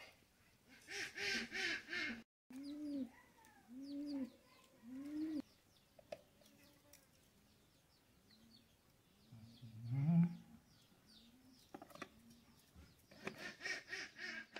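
Farmyard birds calling: a harsh run of calls about a second in, three low arched calls about a second apart, a louder low call near the middle, and more harsh calls near the end.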